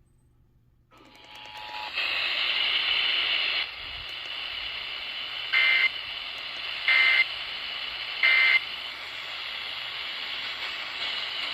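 Radio receiver static hissing in about a second in, then three short, loud data-burst beeps about a second and a half apart: the EAS end-of-message tones that close a Required Weekly Test.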